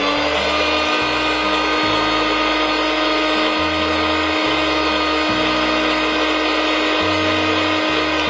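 Preethi electric mixer grinder running steadily at full speed, its motor giving a continuous whine as it grinds soaked dried red chillies with water into a paste.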